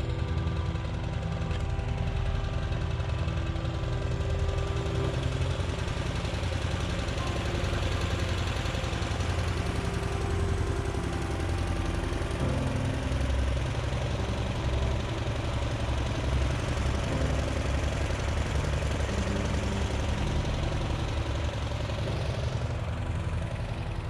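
Small petrol engine of a hot-air balloon inflator fan running steadily, with a rapid low pulsing.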